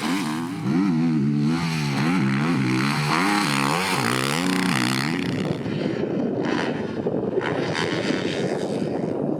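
Honda CRF450R motocross bike's single-cylinder four-stroke engine revving up and down repeatedly while being ridden. After about five seconds the engine note gives way to a rougher, even noise without a clear pitch.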